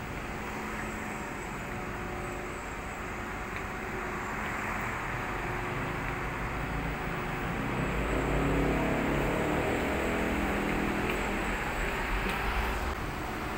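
Steady road-traffic noise, with a vehicle's low engine rumble growing louder about eight seconds in and fading again near the end.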